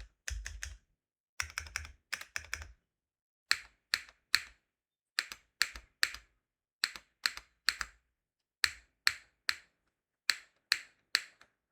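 Keystrokes on a custom 65% mechanical keyboard with linear Cherry HyperGlide Black switches, a skeleton aluminium plate, GMK Klassiker keycaps and no foam. Quick bursts of typing at first, then single key presses in even groups of three, each a sharp click.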